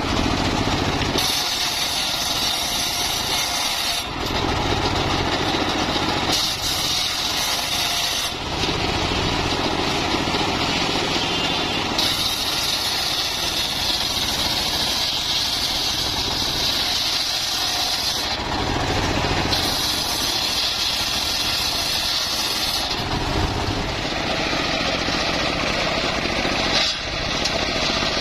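Homemade engine-driven circular sawmill running and sawing mahogany: a loud, continuous engine-and-blade noise that changes character abruptly every few seconds.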